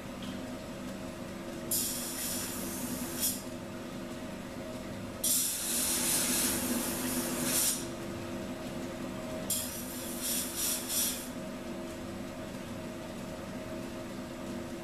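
Belt grinder motor running with a steady hum, while a steel san mai knife blade is scrubbed by hand with an abrasive in three spells of hissing strokes. The last spell comes as several quick separate strokes.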